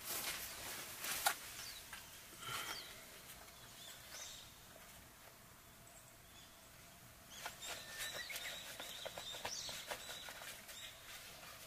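Leather work gloves being pulled on and worked over the hands, a run of soft rustles and scrapes, with birds calling faintly in the background.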